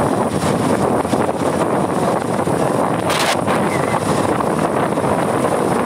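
Steady wind rush over the microphone from riding a Bajaj Pulsar 220 motorcycle at speed, mixed with the bike's running and road noise. A brief hiss about three seconds in.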